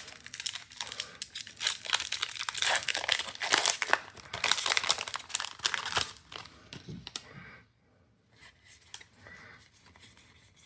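Foil booster pack wrapper being torn open and crinkled, a dense crackle of tearing and crumpling foil. About seven and a half seconds in it drops to a few faint taps and rustles.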